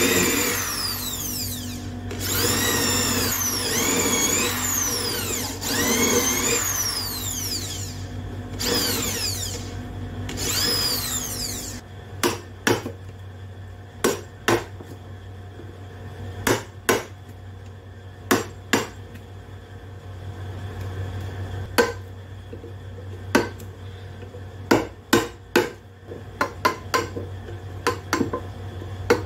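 Electric hand drill boring into a wooden beam in several runs, its motor pitch rising and falling as it loads and frees. After about twelve seconds it gives way to a claw hammer striking a wood chisel in sharp, irregular knocks, some in quick pairs, as a mortise is chopped into the beam.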